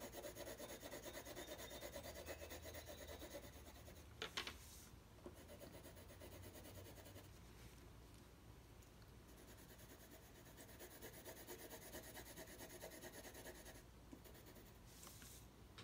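Faint scratching of a drawing pencil shading on paper, with a short knock about four seconds in and a quieter pause in the middle before the shading resumes.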